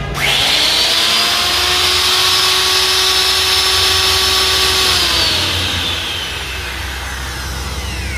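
Handheld electric wood router's brushed motor switched on, spinning straight up to a steady high whine, then switched off about five seconds in and winding down with falling pitch. It runs smoothly again, the armature no longer rubbing after its shaft was re-centred.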